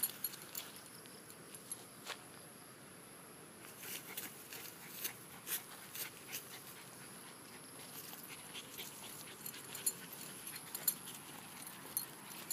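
Soft, irregular footsteps and rustling on grass from a walker and a small dog trotting alongside, with a faint steady high-pitched hiss underneath.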